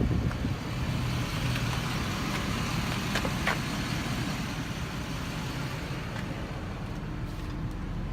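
Ford F550 service truck's engine idling steadily, with a couple of light clicks about three seconds in.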